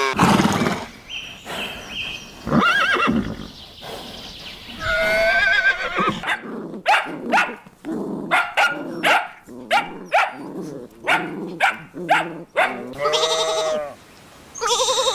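A run of farm animal calls, several different animals one after another: a few separate calls, then a long string of short, sharp calls about two a second, then one more drawn-out call near the end.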